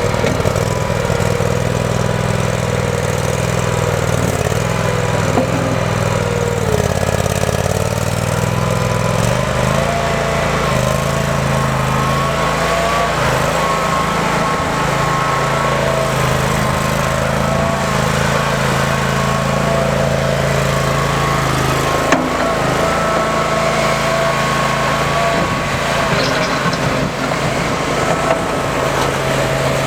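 Toro Dingo 222 compact utility loader running steadily, its engine note shifting about a third of the way in, with a higher whine that wavers in pitch over the engine and one sharp knock about two-thirds of the way through.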